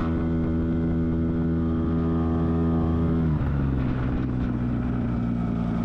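Small Hangkai 6 outboard motor running at high throttle, driving an inflatable boat at about 25 km/h. The engine note is steady, then drops to a lower, rougher pitch about three seconds in as the throttle is eased.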